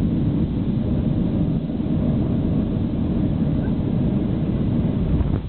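Boeing 737 cabin noise on final approach just above the runway: a steady low rumble of the jet engines and the airflow over the extended flaps, heard from a window seat. The loudness dips briefly near the end.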